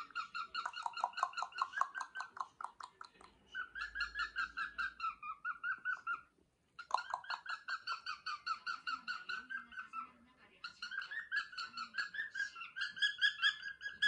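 Rapid, rhythmic 'kon-kon-kon' clucking, several strokes a second in runs with short pauses: a person's mouth-made cue to set cockatiels marching. A cockatiel chatters along in time.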